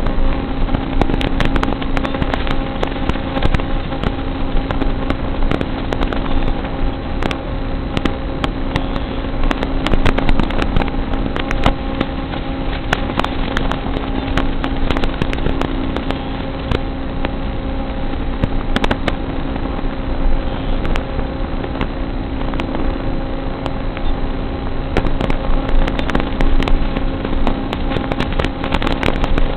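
Small electric FPV RC car (Emax EAT03) running, heard through its low-quality onboard audio: a steady electric hum with hiss, broken by many sharp clicks and crackles.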